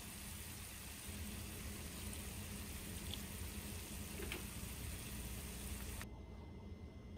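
Steady hiss over a low hum, the background noise of a kitchen stove area, with a couple of faint ticks. The hiss cuts off sharply about six seconds in, leaving only the hum.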